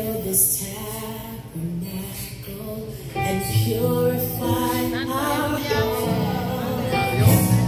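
Christian worship song: voices singing held, wavering notes over instrumental backing.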